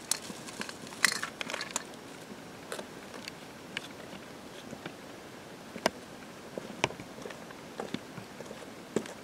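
Scattered small clicks and light knocks as kayak stabilizer parts, a connecting tube and its fittings, are picked up and handled. There is a quick run of rattling clicks about a second in.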